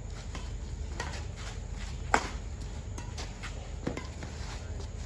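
Badminton rackets striking a shuttlecock during a rally: sharp smacks, the loudest about two seconds in and another near four seconds, with fainter clicks between, over a steady low hum.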